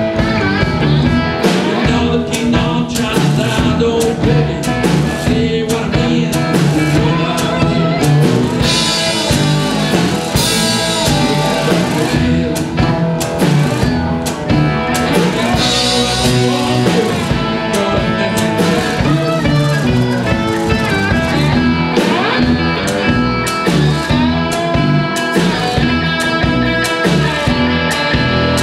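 Live blues-rock band playing: amplified cigar box guitars over a drum kit, with steady drum hits and cymbal crashes.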